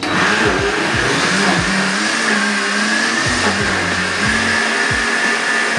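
Countertop bar blender switched on and running steadily with a high whine, blending vanilla ice cream, milk and Oreos into a thick milkshake. Its motor starts abruptly and holds an even level.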